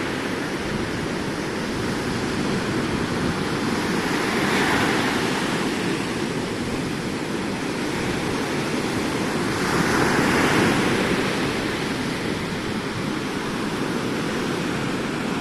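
Ocean surf washing on the beach, a steady rush with two waves swelling louder, one about a third of the way in and one past the middle.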